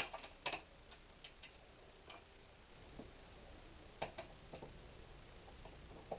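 Scattered light clicks and taps at uneven intervals from handling screws, a dimmer switch and a back box.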